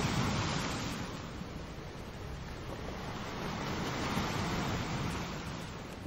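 Ocean waves breaking and washing in as a steady rush of surf, loudest at the start and swelling again about four seconds in.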